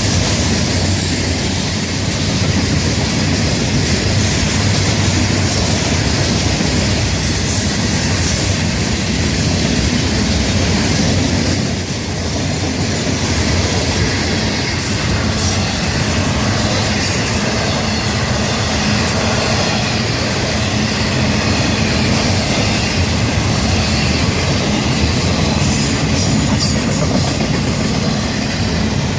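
Florida East Coast Railway train's cars rolling past at close range: a steady rumble of wheels on rail with clickety-clack over the rail joints and some wheel squeal, dipping briefly about twelve seconds in.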